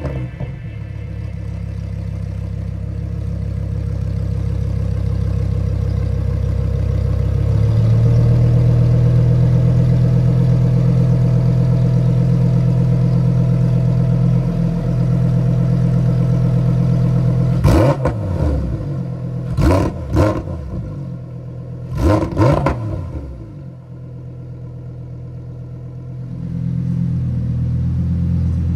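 Lamborghini Huracán Sterrato's naturally aspirated V10 idling steadily, then blipped three times in quick succession past the middle, the revs rising and falling sharply, before settling back to idle.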